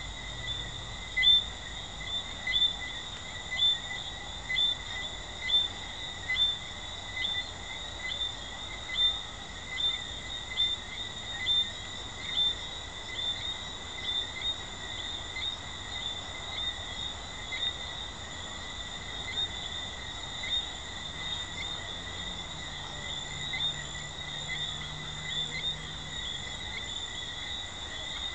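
Jamaican treefrogs calling at night: one frog repeats a short, high chirping call about once a second, loudest in the first half and fading later, over a steady high-pitched chorus.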